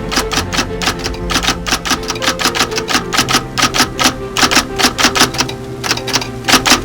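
Background music with a fast, steady percussive beat of sharp clicks, about five or six a second, over short low melodic notes.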